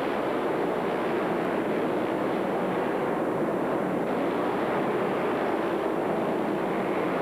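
Engines of several three-wheeler ATVs racing together, blending into a steady, even engine noise with no single machine standing out.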